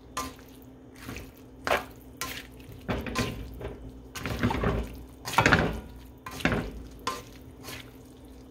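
Plastic spatula scraping the bottom of a stir-fry pan and tossing chopped cabbage, green beans and carrots, in irregular strokes every half second or so, loudest near the middle, over a faint steady hum.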